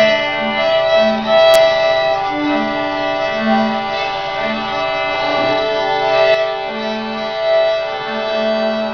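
A student string ensemble of violins and a cello playing a slow tune together in long bowed notes, each held for about half a second to a second.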